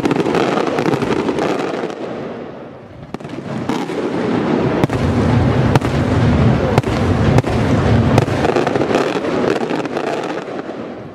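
Aerial firework shells bursting in quick succession: a dense, continuous rumble and crackle with sharp bangs about once a second. It eases briefly about two to three seconds in, then builds again.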